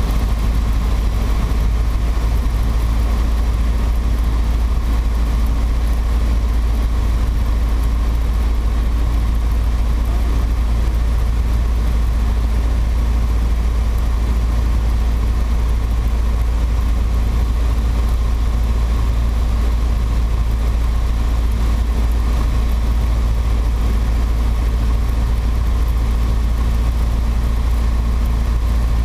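Piper PA-28-140 Cherokee's four-cylinder Lycoming O-320 engine and propeller running at a steady drone, heard from inside the cabin in flight.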